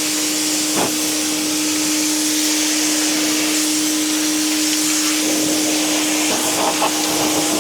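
BuyGlobal W6 electric pressure washer running and spraying: a steady motor-pump hum under the loud hiss of the high-pressure water jet.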